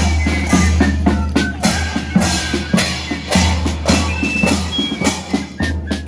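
Marching drums in a street procession beat a steady march rhythm, about two strokes a second.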